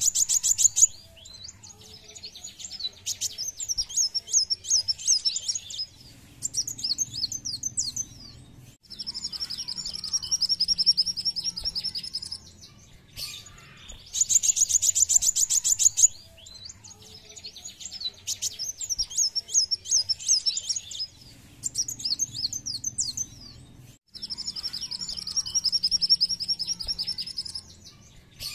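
Van Hasselt's sunbird (kolibri wulung) singing: high, rapid trills and chattering phrases in blocks of a few seconds, with one long even trill lower in pitch. The same sequence repeats about every 14 seconds.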